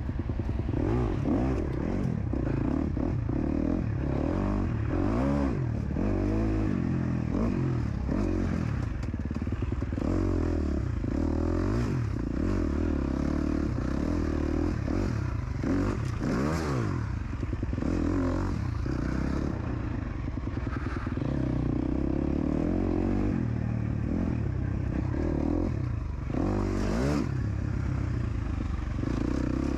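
KTM 250 SX-F dirt bike's single-cylinder four-stroke engine under hard riding, its pitch rising and falling again and again as the throttle is opened and closed, with sharper rev climbs around the middle and near the end.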